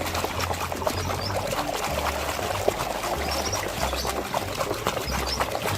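Water pouring and splashing over a muddy toy as it is rinsed clean by hand, a steady run of small splashes and trickling.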